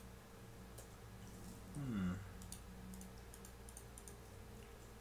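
Faint computer keyboard and mouse clicks, scattered single clicks as Blender shortcut keys are pressed. A short wordless 'hmm' from a man's voice comes about two seconds in, over a steady low electrical hum.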